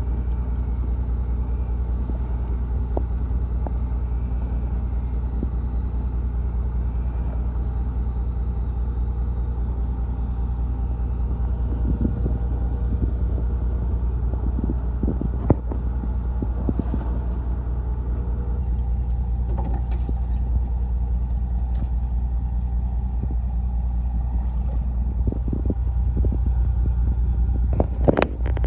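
Fishing boat's engine running steadily, a deep continuous rumble. A few short knocks sound over it, one about halfway and more near the end.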